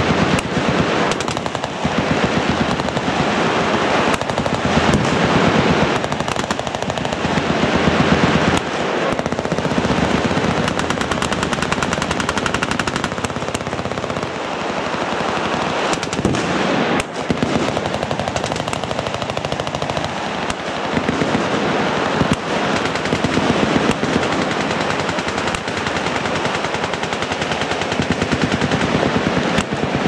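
Many machine guns firing at once from a firing line, a dense, continuous rattle of overlapping bursts with no break.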